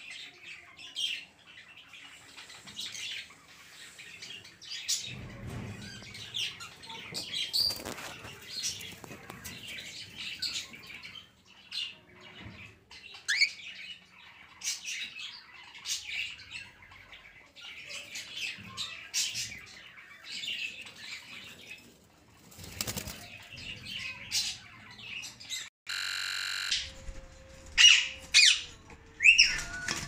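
Lutino cockatiels in a cage chirping and calling, with short high calls one after another and some wing flapping. About 26 seconds in a steady buzz lasts about a second, followed by louder, sharper calls near the end.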